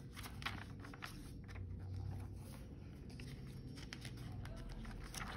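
Faint rustling and light taps of glossy catalogue pages being handled and turned.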